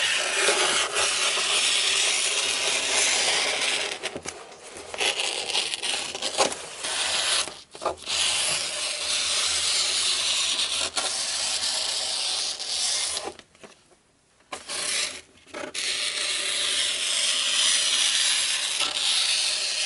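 Scissors cutting through a long sheet of thin paper along a metal ruler: long continuous cuts with a steady rasping hiss, broken by a few short pauses.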